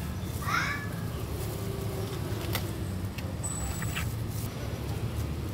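A steady low hum of background machinery with a few faint clicks and taps, and a brief faint warbling squeak about half a second in.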